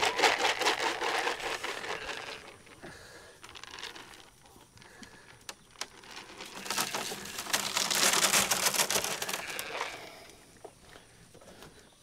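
Pellet feed poured from a plastic feed scoop onto the ground, a dense rattling patter of many small pellets. It comes in two pours: one at the start lasting about two seconds, and a longer, louder one from about six and a half to ten seconds in.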